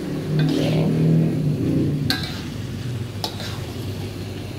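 A metal spatula stirring chicken and tofu in sambal tumis frying in a wok, with two sharp taps of metal on the pan about two and three seconds in. A steady low drone, loudest in the first two seconds, runs under it.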